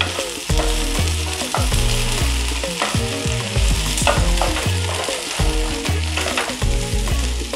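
A wooden spatula stirs and scrapes sliced okra and potato cubes in a nonstick kadai in repeated strokes, with the vegetables sizzling as they dry-fry uncovered. The okra has fried for five or six minutes and has changed colour.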